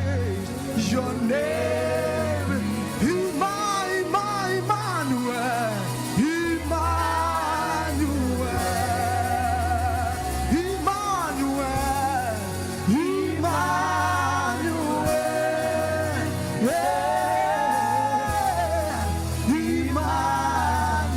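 Gospel song: singing over a band with a steady bass line.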